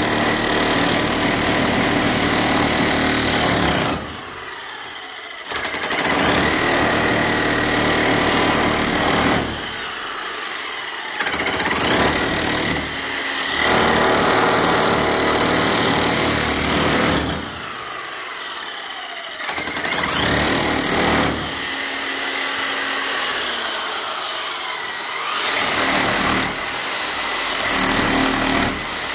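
Electric rotary hammer with a chisel bit breaking up concrete. It hammers in long runs of several seconds, stopping briefly several times between them.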